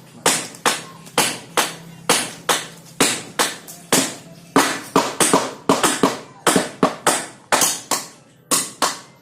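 Repeated sharp knocks, about two to three a second, slightly uneven, with some struck in quick pairs: hand-tool work on the house's building materials.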